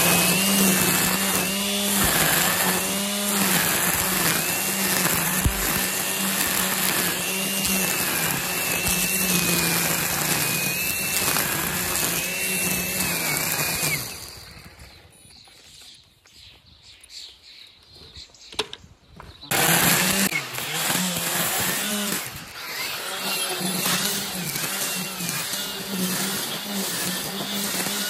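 Battery-powered EGO multi-tool with a string-trimmer head running at speed, its line cutting through long grass and weeds; the motor's whine dips and recovers in pitch as it takes the load. It drops away for about five seconds around the middle, then speeds back up.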